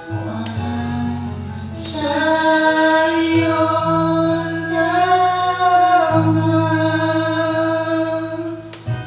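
A man and a woman singing together into a condenser microphone, holding long, sustained notes over a steady instrumental accompaniment.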